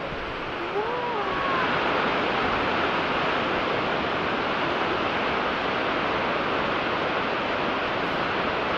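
Steady rushing roar of Snoqualmie Falls, a large waterfall. It grows louder about a second and a half in and then holds even. A brief high sound glides up and down about a second in.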